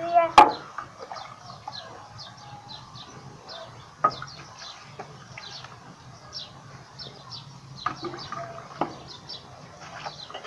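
Small birds chirping over and over in short falling calls, with chickens clucking and a pitched call near the start. There are a few sharp knocks, the loudest about half a second in.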